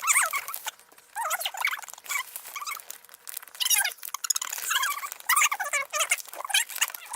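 A puppy whining and squeaking in short high-pitched cries, over and over.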